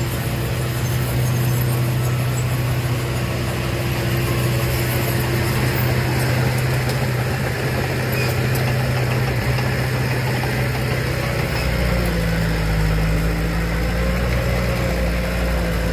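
Heavy diesel engine of earth-moving machinery running steadily; about twelve seconds in its sound changes as a deeper rumble comes in.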